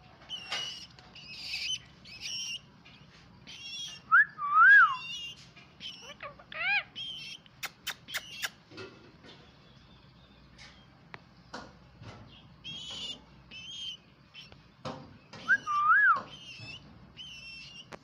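Indian ringneck parakeet chirping and whistling, with two louder rising-and-falling whistles, one about four seconds in and one near the end. A few sharp clicks come around the middle.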